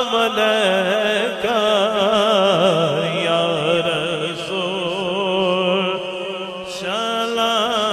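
A male reciter singing a Punjabi naat through a microphone and PA, drawn out in long melismatic phrases with wavering vibrato over a steady low drone. The voice dips briefly about six seconds in, then starts a new phrase.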